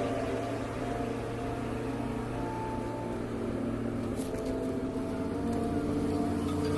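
Car engine and road noise heard from inside the cabin while driving: a steady low drone with a few faint tones above it.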